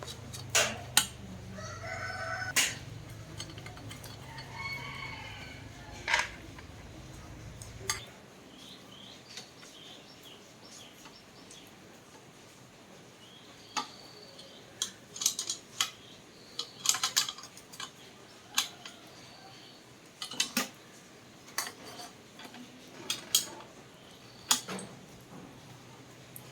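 A rooster crowing over a low steady hum that cuts off suddenly about a third of the way in, with scattered sharp metallic clicks and clinks throughout.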